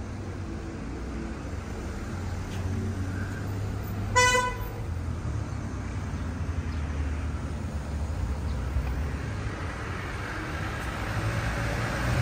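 Street traffic rumbling, with a car horn giving one short toot about four seconds in.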